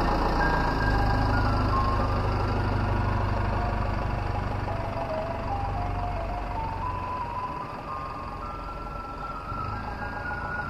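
Ice cream truck's jingle, a simple tune of single held notes, over the low rumble of the truck's engine. Both fade as the truck drives away, the engine rumble dropping off about two-thirds of the way through.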